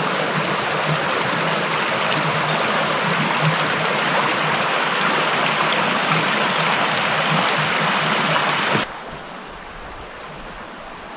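Hill river water rushing, a steady loud rush; about nine seconds in it drops suddenly to a quieter, lower hiss.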